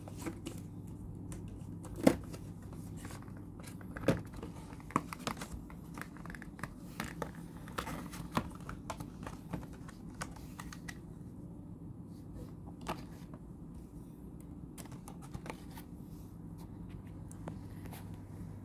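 Stiff clear plastic blister packaging being pulled open and handled: sharp crackles and clicks, loudest about two and four seconds in, growing sparser in the second half. A low steady hum runs underneath.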